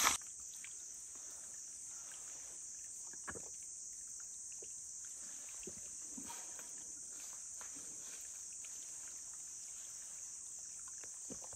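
A steady, high-pitched drone of insects, with a few faint clicks and rustles in the foreground.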